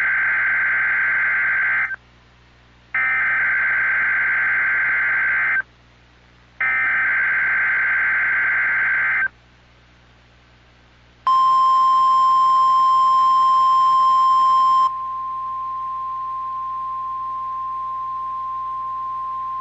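Emergency Alert System header on NOAA Weather Radio: three bursts of SAME data tones, each about two and a half seconds with a second's pause between, then the single-pitched 1050 Hz warning alarm tone held for about nine seconds before it cuts off. The tone is louder and harsher for its first few seconds, then steadier and quieter. It announces the statewide tornado drill and required monthly test.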